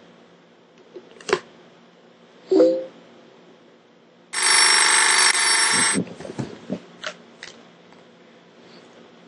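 A loud electronic ringing, like a phone ringtone, made up of many steady tones. It starts abruptly about four seconds in and cuts off after under two seconds, as the gag 'sound' of a plastic cup held up in the hand.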